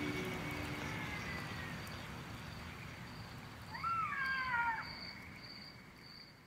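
Faint bush ambience fading out, with a high-pitched tone that pulses about twice a second. About four seconds in comes a brief wavering animal call that falls in pitch.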